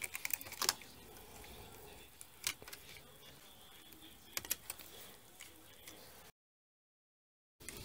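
Light clicks of a hand transfer tool and metal latch needles on an LK150 knitting machine bed as edge stitches are moved by hand to make an increase: a few clicks at the start, one about two and a half seconds in, and a short cluster about four and a half seconds in. The sound cuts out entirely for over a second near the end.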